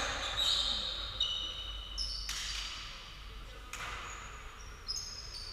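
Sports shoes squeaking on an indoor court floor in several short, high squeaks, with a few sharp knocks of a volleyball being hit or bounced.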